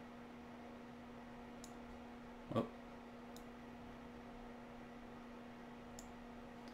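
Faint, sparse computer mouse clicks while a slider is adjusted on screen, over a steady low electrical hum. One short, louder sound comes about two and a half seconds in.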